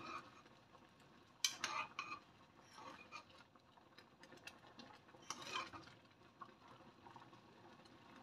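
A spoon stirring a pot of kolak in a saucepan, scraping and lightly clinking against the pot, with brief louder strokes about one and a half and five and a half seconds in.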